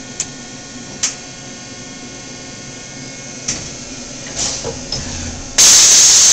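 Cincinnati Milacron Arrow 1000 vertical machining centre running with a steady hum, with a few sharp clicks about a second apart early on and several more after three seconds. Near the end a loud, steady hiss of air starts suddenly and keeps going, as the machine readies a tool change.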